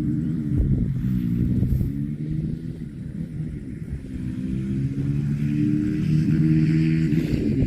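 Cattle mooing: long, low drawn-out calls, several overlapping, that bend slowly in pitch.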